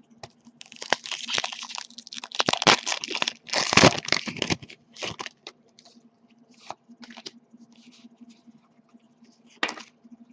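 Foil booster-pack wrapper being torn open and crumpled, crackling in a dense run of bursts for about four seconds and loudest near the middle. After that come lighter, scattered clicks and rustles of trading cards being handled, with one brief crackle near the end.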